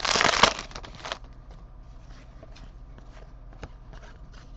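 Trading cards and pack wrapper being handled: a loud rustle for about the first second, then light scattered taps and clicks as cards are flipped through.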